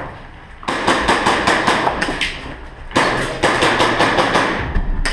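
Quick footsteps running up concrete stairs, a fast regular patter of steps in two runs with a short lull between.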